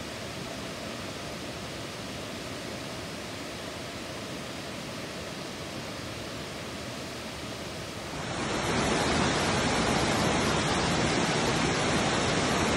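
Steady rushing of a tall waterfall cascading down a rock face; about eight seconds in it becomes suddenly louder and fuller.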